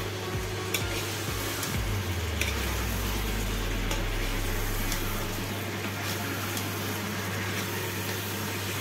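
Raw chicken pieces being mixed with spice powders in a steel kadai by spatula and by hand: a wet, squishing noise with a couple of sharp clicks of the spatula against the pan in the first few seconds, over a steady low hum.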